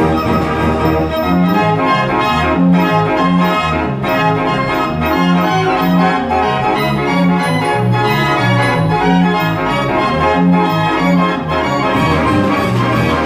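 Large Karl Frei & Sohn mechanical pipe organ playing a tune, its pipes sounding full chords over bass notes that mark a steady beat.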